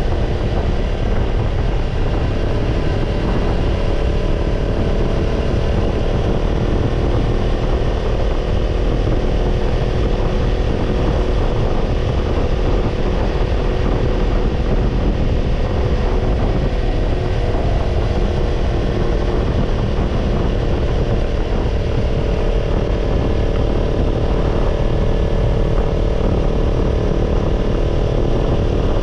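Kawasaki Ninja 250 parallel-twin running through a BEET NASSERT Evolution Type II titanium slip-on muffler while riding, the exhaust note holding fairly steady at a cruising engine speed over a low rumble.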